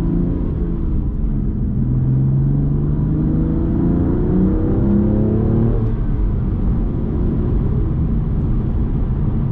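BMW M2 Competition's twin-turbo straight-six with a resonator-deleted exhaust, driving under steady throttle. The engine note climbs slowly, changes pitch a few seconds in, then settles into a steady rumble with road noise.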